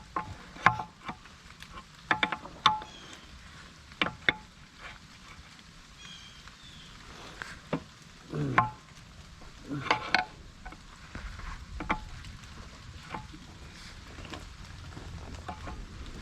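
Irregular metallic clinks and taps of wrenches and steel hydraulic fittings being handled during a hydraulic hose repair, some with a short ringing tone, over a steady patter of rain.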